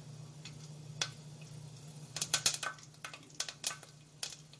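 Curry leaves and cumin seeds spluttering in hot oil in a cooking pot: irregular sharp crackles and pops, bunched in clusters about two and three and a half seconds in, over a steady low hum.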